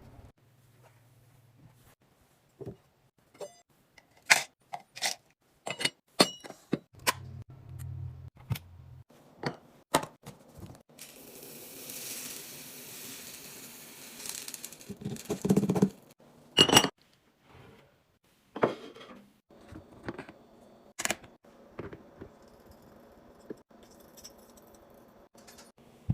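Restocking handling sounds: containers and packages set down and handled in a run of sharp clicks, taps and clinks. About halfway through, a steady hiss lasts roughly three seconds.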